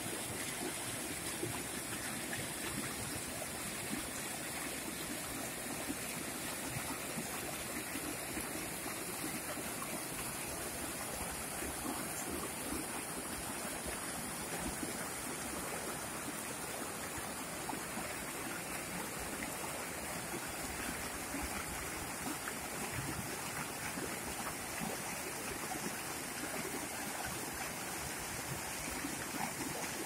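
Shallow mountain stream flowing fast over rocks and boulders in small rapids: a steady rushing and splashing of water.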